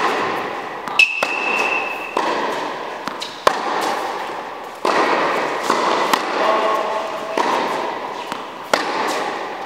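Tennis balls struck by a racket and bouncing on an indoor hard court, sharp hits a second or few apart with a long hall echo after each. A high steady squeal lasts about a second, starting a second in.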